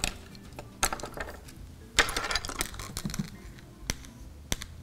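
A few separate light clicks and knocks from handling painting supplies on a table, including a paintbrush rattling against a glass jar of rinse water; the sharpest cluster comes about two seconds in.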